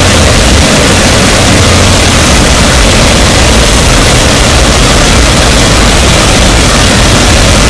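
Harsh noise wall: a dense, unchanging wall of very loud noise that fills every pitch, from a heavy low rumble up to a high hiss, with no rhythm or breaks.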